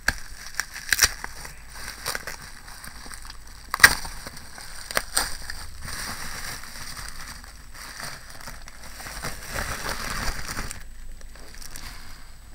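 Plastic bubble-wrap packaging crinkling and crackling as it is handled and pulled off paper pads, with scattered sharp cracks, the loudest about four seconds in.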